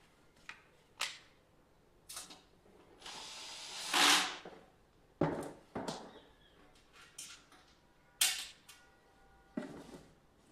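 Hardware being handled: a scatter of small sharp clicks and knocks, with one longer rising sliding or scraping sound about three to four seconds in.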